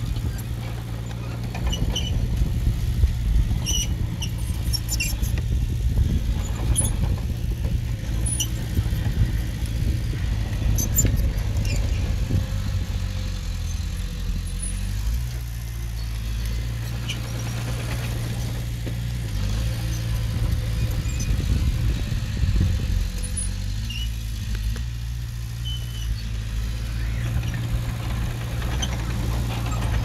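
Small bulldozer's diesel engine running, its note dipping and rising a few times around the middle, with scattered high squeaks and metallic clinks from the machine working.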